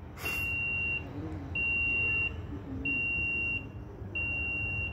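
Electrofusion welding machine beeping at an even rhythm while it fuses a coupler onto HDPE water pipe: a high beep about 0.7 s long, four times at about 1.3 s intervals. A short burst of noise comes about a third of a second in.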